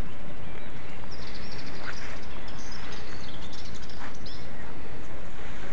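Steady wind rumbling on the microphone, with small birds chirping a few times in the background.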